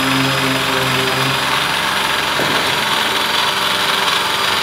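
Handheld electric sheet-metal shear running steadily as it cuts through a thin aluminium sheet.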